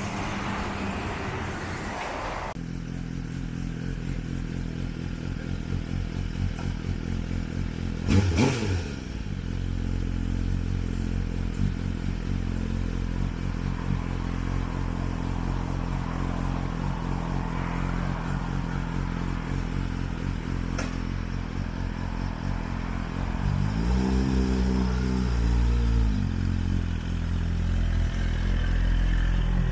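2022 Suzuki GSX-R1000's inline-four engine idling steadily through a Yoshimura titanium slip-on exhaust. There is a brief loud burst about eight seconds in, and a few quick revs near the end.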